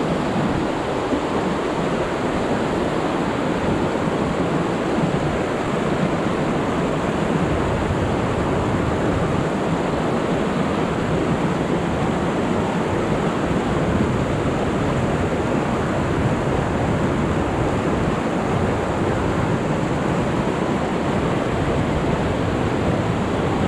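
Fast mountain creek rushing over rocks through whitewater riffles: a steady, unbroken rush of water.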